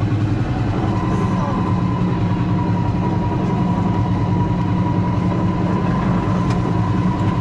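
Steady low mechanical hum with a thin high whine that comes in about a second in.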